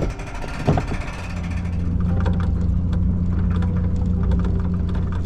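A small motor running with a steady low hum, starting about a second in, just after two sharp knocks.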